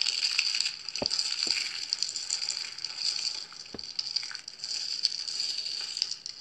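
Dried soap shavings crushed and crumbled between the fingers: a dense, crisp crackling and crunching, with a few sharper clicks.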